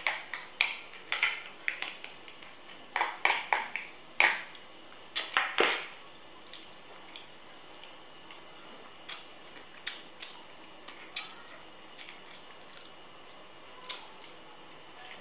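Cooked crab shells being cracked, scraped and pried apart by hand and with a metal utensil: clusters of quick crackles and clicks in the first six seconds, then occasional single snaps.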